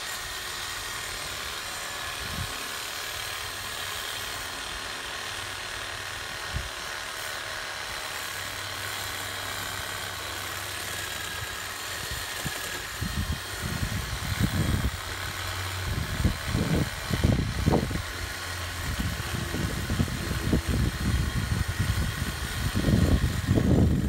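Chainsaw running steadily up in the tree. In the second half, irregular low rumbles and thumps on the microphone grow louder.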